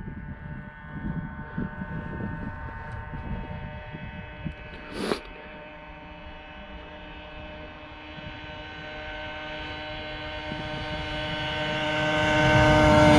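A stock Polaris RMK 600 two-stroke snowmobile running flat out toward the listener on a top-speed pass, its engine note holding a steady pitch and growing louder over the last several seconds as it closes in. A single sharp click sounds about five seconds in.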